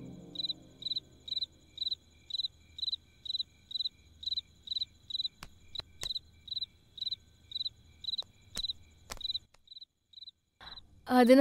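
A cricket chirping in a steady rhythm, about two short high chirps a second. A few sharp clicks sound around the middle, and the chirping stops near the end.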